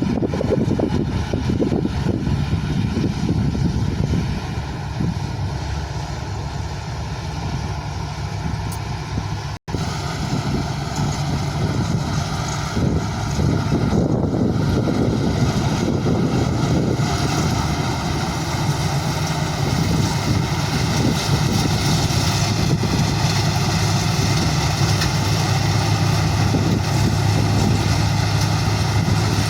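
Mahindra Arjun Novo 605 tractor's diesel engine running steadily under harvesting load, with a momentary break about ten seconds in.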